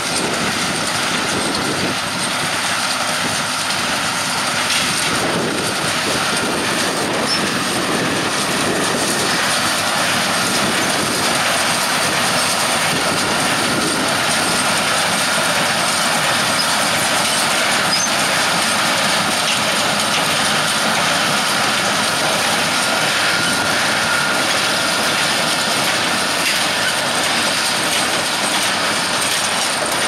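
Massey Ferguson 6190 tractor pulling a Welger AP830 small square baler through straw: the tractor engine runs steadily under the baler's continuous mechanical clatter as it picks up and packs the straw.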